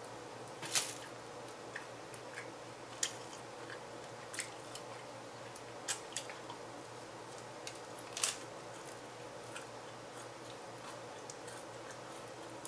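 Scattered short crackles and clicks of a person eating a sandwich: tearing the bread, chewing, and handling its paper wrapper, over a steady low hum. The loudest crackles come about a second in and about eight seconds in.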